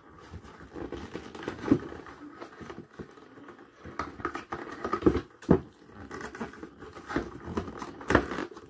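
Stiff cardboard box being folded and creased by hand: rustling and scraping of the card, with a few sharp snaps or taps as the flaps are pressed into place.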